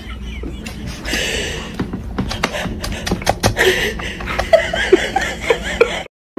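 Dry cat kibble clicking and rattling against a plastic bowl and feeder tray as a cat eats, a rapid run of sharp clicks that gets louder and denser towards the end, with soft human laughter mixed in. It cuts off abruptly just before the end.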